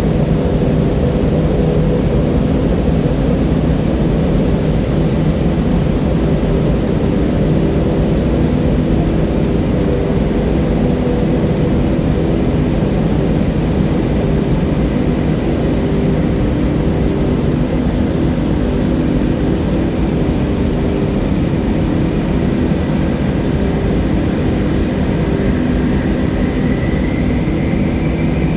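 Fast-flowing river water rushing in a deep, steady, loud roar.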